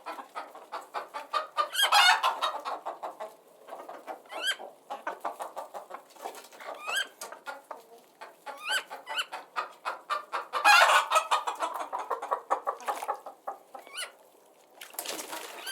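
Chickens clucking: rapid short clucks throughout, with louder pitched calls every few seconds.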